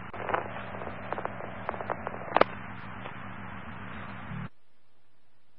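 Open two-way dispatch radio channel keyed with no voice: steady hum and hiss with scattered crackles and pops. About four and a half seconds in it cuts off suddenly, as the squelch closes, to a fainter steady hum.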